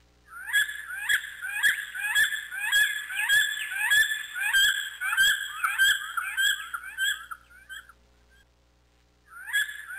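A bird of prey calling: a rapid series of high, downward-slurred calls, about two a second, that stops for about a second and a half and then starts again near the end.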